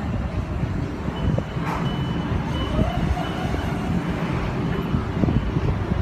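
Long Island Rail Road train running with a steady low rumble. A high electronic beep sounds in short repeated pulses for about two seconds, starting about a second in.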